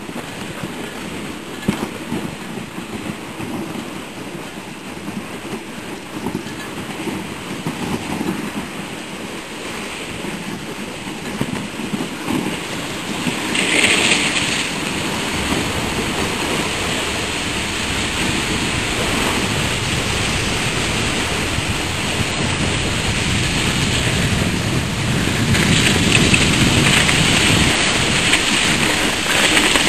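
Dog sled gliding over snow: a steady hiss and scrape of the runners, getting louder about halfway through, with a brief louder rush about a third of the way in.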